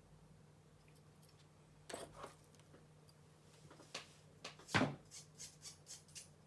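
Clicks and knocks of laptop parts being handled as the heatsink and cooling assembly are taken out: a few separate knocks, the loudest just before the five-second mark, then a quick run of small clicks near the end.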